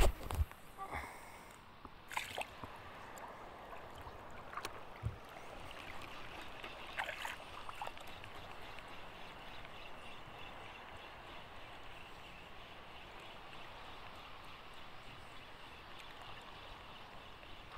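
Water gently lapping and sloshing, after a thump and a few sharp clicks in the first two seconds as an ultralight fishing rod is cast.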